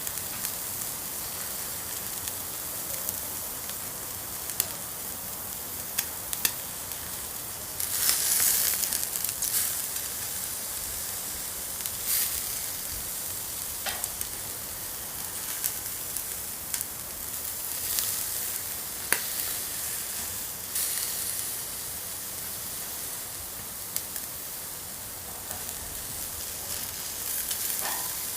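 Steady hiss of rain with scattered sharp drop taps, swelling louder a few times.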